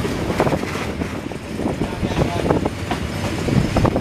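Running noise of a moving passenger train heard from aboard: a steady rumble with scattered short knocks from the wheels on the rails.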